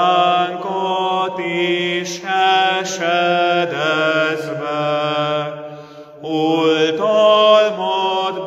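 A man's voice singing a slow hymn for the feast of Christ the King, holding long notes with a short break about six seconds in.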